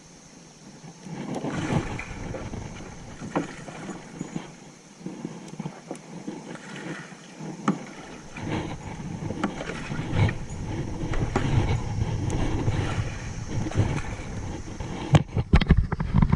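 A kayak moving on a creek: irregular paddle splashes and water moving against the hull. A low rumble comes in about halfway through, and a few sharp knocks sound near the end.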